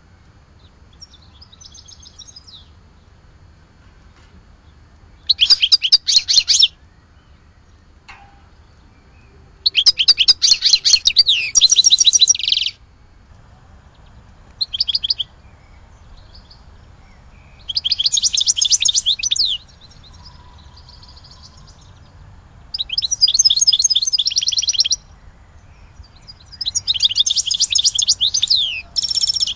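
European goldfinch (maqnin) singing in the Sidi Youcef song style: about six phrases of fast, high twittering trills and notes, each lasting one to three seconds, separated by short pauses.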